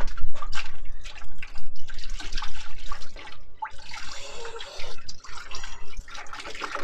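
Plastic knocks and rattles as the coolant reservoir is worked free. Then, about four seconds in, coolant pours and splashes out of the tipped reservoir into a drain bucket.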